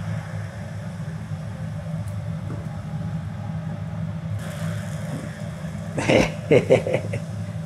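Steady low machine hum, with a brief hiss about four and a half seconds in.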